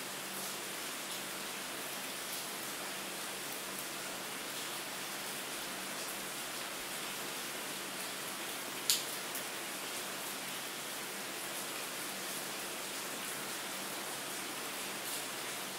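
Steady rain: an even hiss with scattered small drop ticks, and one sharper drop about nine seconds in.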